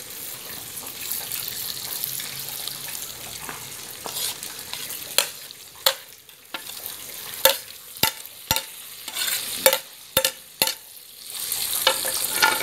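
Pork frying in hot fat in an open pressure cooker, a steady sizzle, while a steel ladle clinks sharply and repeatedly against a plate and the pot rim as tomatoes are scraped in. Near the end the sizzle grows louder as the tomatoes hit the hot fat.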